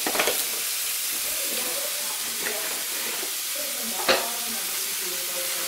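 White wrapping paper and a cardboard box being handled as something is unwrapped: rustling and crinkling over a steady hiss, with a short crackle near the start and a sharper, louder crackle about four seconds in.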